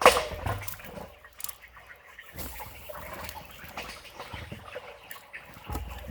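Water splashing as beaver-dam debris clogging a culvert is pulled apart: one loud splash at the start, then scattered smaller splashes and knocks of sticks.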